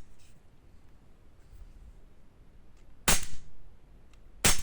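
Propane-powered P320 gas blowback airsoft pistol firing two shots about a second and a half apart, each a sharp crack of the gas charge and slide cycling, the first with a brief ringing tail.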